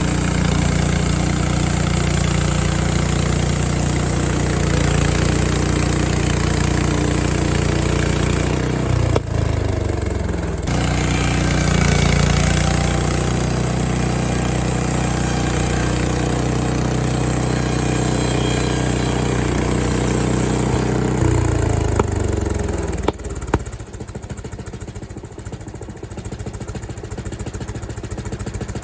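Frontier OS23 band sawmill's gas engine running steadily at speed while the blade saws through a pine log. Near the end it drops to a lower, quieter idle.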